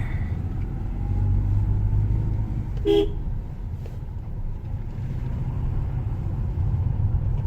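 Steady low engine and road rumble of a moving car, with one short car horn toot about three seconds in.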